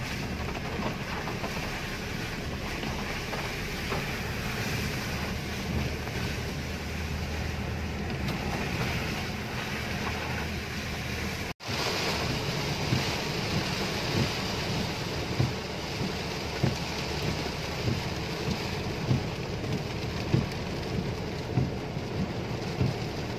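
Steady rushing noise inside a car's cabin while driving through heavy rain. It cuts out for an instant about halfway through, then comes back a little louder with a string of short thuds about once a second.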